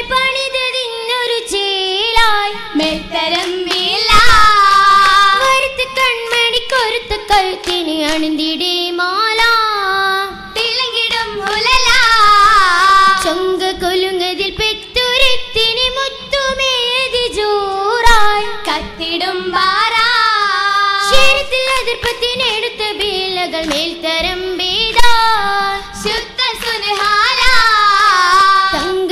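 Young girls' voices singing a Mappila song in unison for an oppana, the melody gliding and ornamented, with sharp hand claps scattered through it.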